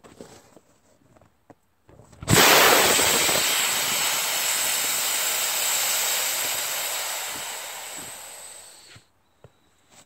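Ether inside a backhoe tire igniting with a sudden whump about two seconds in, blowing the tire's bead onto the rim. A loud hiss follows, slowly fading over several seconds and stopping abruptly near the end.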